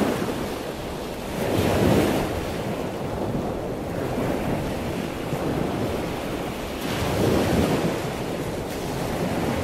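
Sea waves washing and surging, swelling louder about two seconds in and again around seven seconds.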